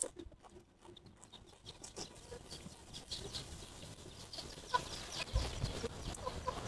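Close-miked chewing and mouth sounds of fresh herb leaves being eaten: soft, scattered wet clicks. Chickens cluck faintly in the background.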